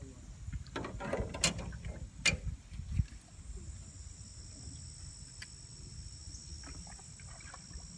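Insects trilling, a steady faint high thin tone that comes up after about three seconds, over a low wind rumble. A few sharp clicks and knocks sound in the first three seconds.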